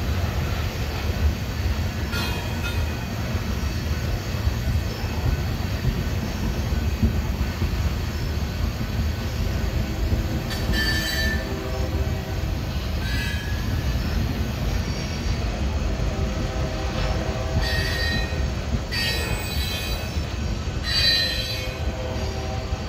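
Freight cars of a trash train rolling past at steady speed: a continuous low rumble of steel wheels on rail, broken by several short, high wheel squeals that come more often in the second half.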